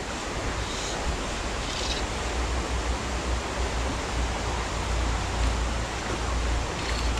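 Fast-flowing mountain stream rushing steadily, with a low rumble underneath.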